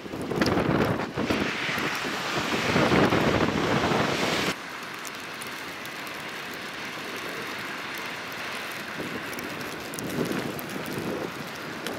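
Car tyres pushing through flood water and slush with a steady rushing splash, mixed with wind buffeting the microphone. The sound drops abruptly about four and a half seconds in and carries on quieter, swelling again near the end.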